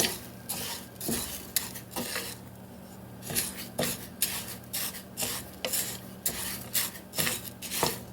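A spoon stirring and scraping rice in a cooking pot in short, irregular strokes, with a brief pause about two seconds in.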